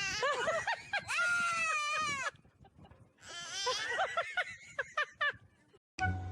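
Two long, high-pitched animal cries, each about two seconds, with a short pause between them.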